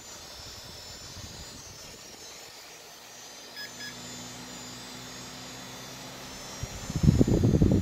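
Cooling fans of a dual-Xeon PC running flat out with steady whirring and humming, at full speed because the temperature sensor is disconnected. A short double beep sounds about halfway through. Near the end a much louder gusty rumble comes in as the camera closes in on a fan.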